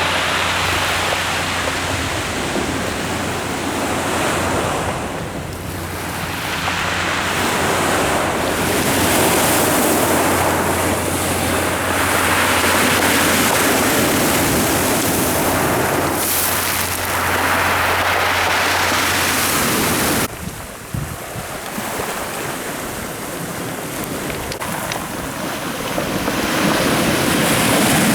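Sea surf breaking and washing on the shore, surging and ebbing every few seconds, with wind buffeting the microphone. A steady low hum lies underneath until about two-thirds of the way through, where the sound changes abruptly.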